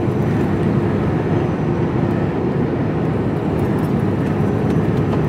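Steady drone of a container lorry's diesel engine and road noise, heard from inside the cab while driving.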